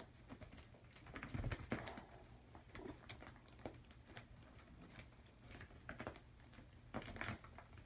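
Kittens scrambling on a bed: claws catching and scratching on the fabric sheet and rustling the bedding, in scattered faint scratches and soft thumps. The loudest bursts come about a second and a half in and again near the end.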